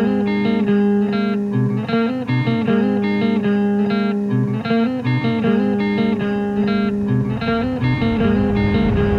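Music: guitar playing a slow, repeating picked figure over a held low note.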